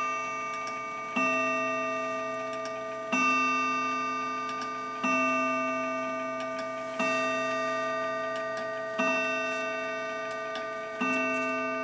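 German mantel clock striking the hour: six slow strikes about two seconds apart, each ringing on with several overtones and dying away until the next.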